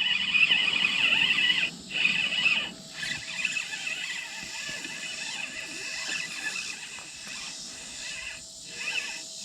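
High-pitched animal calling, loud in bouts of about a second with short breaks over the first three seconds, then settling into a fainter, steady chorus.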